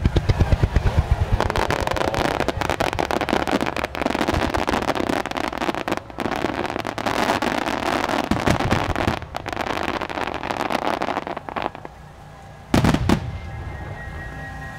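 Starmine fireworks barrage: shells bursting in a dense, continuous volley with rapid crackling at the start. The volley thins out near the end, and one loud boom follows about a second later.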